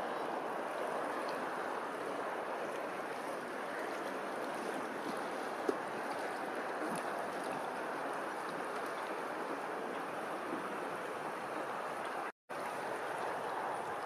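Steady rushing wash of open water, with no bird calls standing out. It cuts out for a split second near the end.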